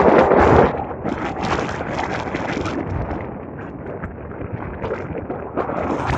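Strong wind buffeting the microphone, loudest for the first second or so and then easing to a lower, gusty rush.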